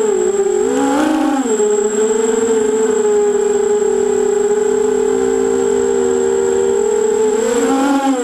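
FPV quadcopter's electric motors whining, the pitch swooping up and down with throttle changes in the first second and a half, then held fairly steady before wavering again near the end. A thin steady high tone runs alongside.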